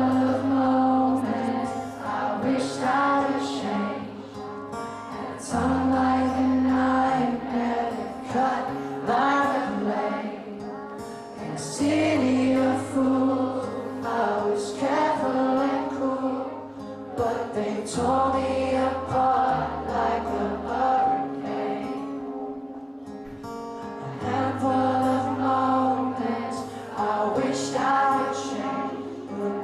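Live amplified acoustic guitar and male lead vocals, with many audience voices singing along, heard from within a concert crowd.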